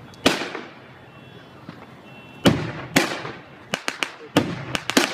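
Fireworks going off: three single bangs with echoing tails, then a quick string of sharp cracks in the last second and a half.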